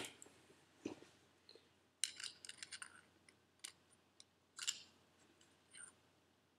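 Faint metal clicks and scrapes from hands working a C-clip into a turbocharger bearing housing: a quick run of clicks about two seconds in, then scattered single ticks.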